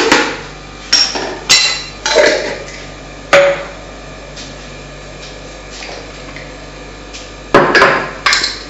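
A spoon knocking against the rim of a ceramic bowl to shake off thick pepper sauce. There are about five sharp knocks in the first three seconds, one of which rings briefly, then a pause, then three quick knocks near the end.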